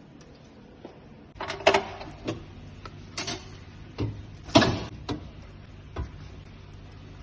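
A run of short knocks and clatters of objects being handled, about seven in all, the loudest about four and a half seconds in, over a steady low hum that starts about a second and a half in.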